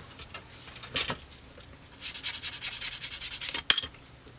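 A small plastic model-kit part being sanded: a brief scrape, then a quick run of rapid rubbing strokes, with a sharp click just after they stop.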